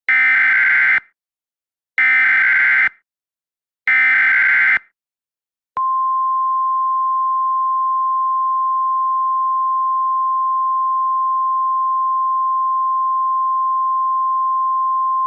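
Emergency Alert System header: three bursts of digital data tones (SAME header), each about a second long and two seconds apart. They are followed by a single steady high tone, the National Weather Service 1050 Hz attention signal, held for about ten seconds. It announces a weather warning.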